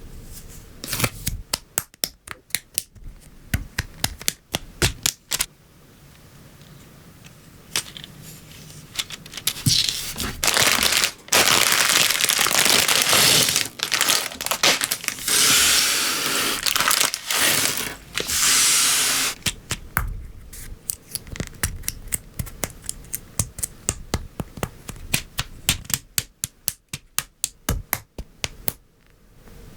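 LEGO Technic pieces clicking and snapping together in quick bursts of small sharp clicks. In the middle there is about nine seconds of loud crinkling and tearing plastic, like a parts bag being torn open and rummaged. Dense clicking returns near the end.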